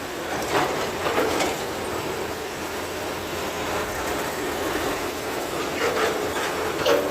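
Excavator at work: a steady machine rumble with short metallic clanks and squeals about half a second in, around one and a half seconds, and twice near the end.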